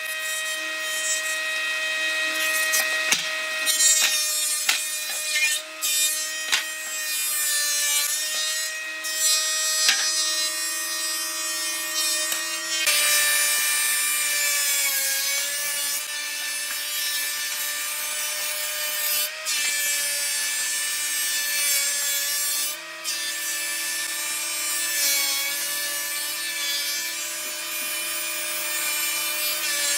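Thickness planer running as rough wood boards feed through it: a steady motor hum and whine under the hiss of the cutterhead shaving the boards. The pitch of the hum jumps abruptly a few times.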